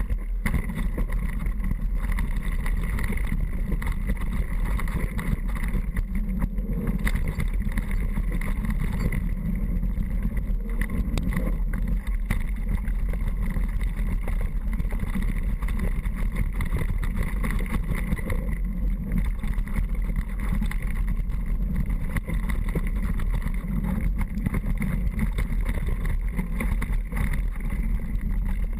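Steady wind rumble on the microphone with a constant fine rattle and crackle, as from a camera riding along on a downhill mountain bike run.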